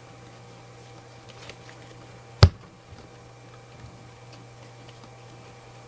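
Trading cards being handled and flipped: faint soft ticks and one sharp click about two and a half seconds in, over a steady low hum.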